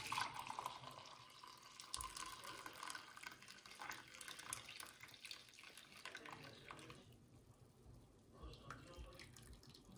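Faint water running or being poured during coffee making, with a few light clinks; it stops about seven seconds in.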